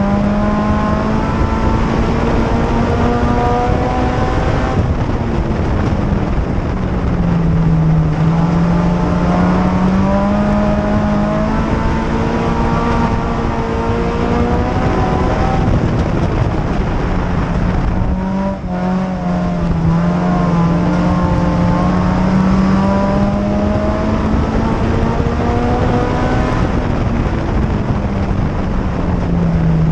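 2004 Chevrolet Cavalier mini-stock's tuned 2.2-litre four-cylinder engine at racing speed, heard from inside the cockpit, its pitch rising and falling in long swells as it accelerates and lifts around the oval, with a brief drop about 18 seconds in.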